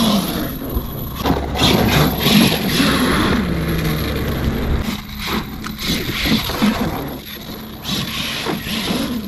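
Arrma Kraton 8S electric RC monster truck driving over loose gravel: tyres scraping and crunching through the stones, with several sharp knocks, and its brushless motor whining underneath.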